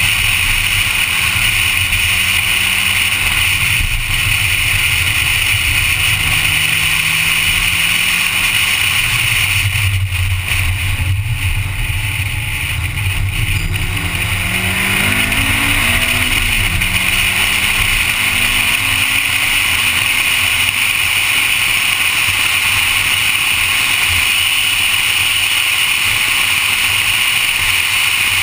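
Honda Civic being driven hard on a race track, its engine running under a steady loud rush of wind and road noise. About ten seconds in the engine note falls off and the sound dips, then from about fourteen seconds it climbs again, breaks off briefly and climbs once more as the car accelerates back up through the gears.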